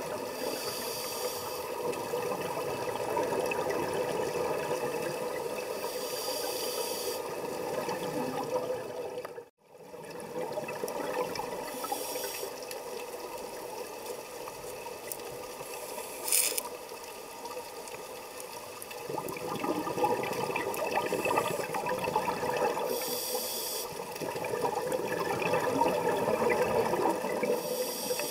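Scuba diver's regulator breathing underwater: a short hiss of inhalation every few seconds between longer stretches of gurgling exhaled bubbles. The sound cuts out for a moment about a third of the way in.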